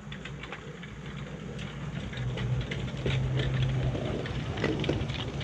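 Battery-electric 7¼-inch gauge miniature locomotive running past on its track: a steady low motor hum that grows louder over the first few seconds as it approaches, with the wheels clicking and rattling over the rails.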